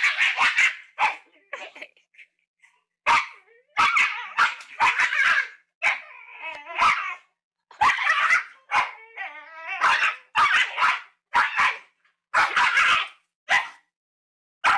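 A dog barking in quick runs of short, sharp barks, with brief pauses about two seconds in and near the end.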